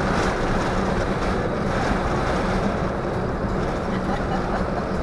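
Wind rushing through the open cabin of a moving Jeep and buffeting the microphone, over a steady low drone of engine and tyres.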